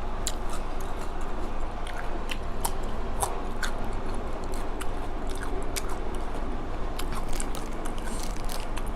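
Close-miked chewing and biting of spicy red ant egg salad, with many short crunches and wet mouth clicks scattered through it.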